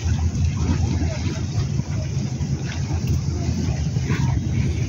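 Wind buffeting the phone's microphone: a steady, loud, low rumble with rapid fluttering.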